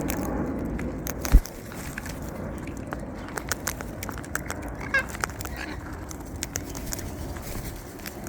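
Wild white cockatoos close up, a dense run of small clicks and scrapes from their beaks and feet, with a single loud thump about a second and a half in and one brief squawk about five seconds in.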